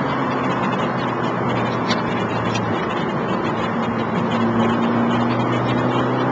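Fiat Grande Punto's 1.4 StarJet four-cylinder petrol engine pulling at speed, heard from inside the cabin over wind and tyre noise. The engine note holds steady, changes about three seconds in, then slowly rises in pitch.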